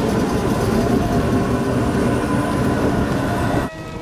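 A vintage HTM tram rolling past close by: a steady, loud rumble of wheels on the rails. Near the end the sound cuts off suddenly to a much quieter background.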